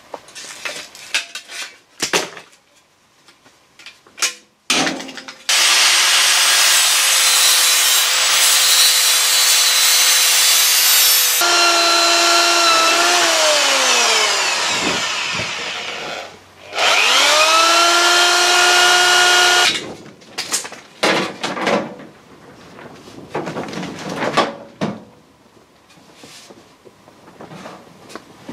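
Snips clicking as they trim the steel repair panel. Then a handheld power tool cuts into the steel panel with about six seconds of loud, harsh noise, and its motor winds down with a falling whine. It starts again a few seconds later, runs at a steady whine for about three seconds and stops, and is followed by small clatters and knocks of handling.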